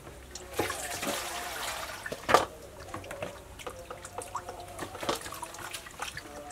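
Water poured from a plastic bowl into a steel bowl, then splashing and dripping as food is washed by hand in bowls of water. A single sharp knock a little after two seconds is the loudest sound.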